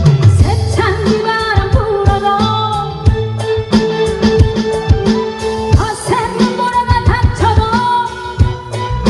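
Live Korean trot song: a woman singing a gliding melody over amplified backing music with a steady drum beat and bass.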